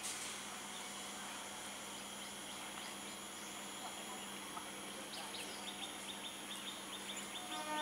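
Faint outdoor background with a steady low hum; from about five seconds in, a run of quick high-pitched chirps repeating several times a second. Right at the end the train's horn starts to sound.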